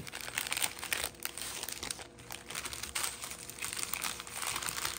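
Small clear plastic bags of diamond-painting drills crinkling as they are handled and gathered up, an irregular run of crackles.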